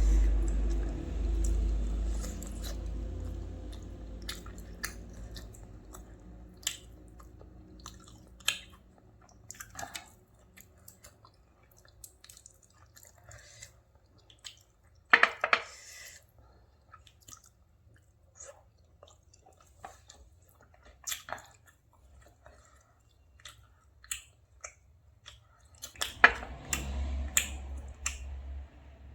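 Close-miked chewing and eating sounds: wet mouth smacks and small clicks, in scattered clusters, with a louder flurry about halfway and again near the end. A low rumble at the start fades away over the first few seconds.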